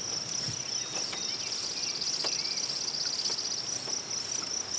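Steady high-pitched trilling of insects in an outdoor chorus, with a few faint chirps underneath.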